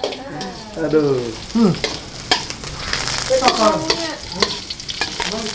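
Shallots and garlic frying in hot oil in a wok, a steady sizzle, while a metal spatula stirs them with repeated clicks and scrapes against the pan.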